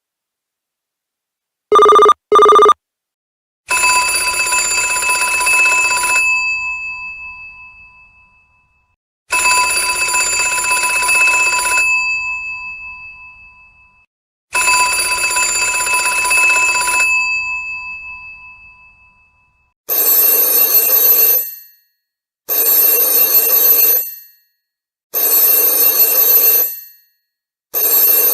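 Telephone ringtones in sequence. First a pair of short electronic pulses about two seconds in. Then a bell telephone rings three long rings about five and a half seconds apart, each ringing on as it fades. From about twenty seconds in, a different, brighter ring sounds in four shorter bursts about two and a half seconds apart.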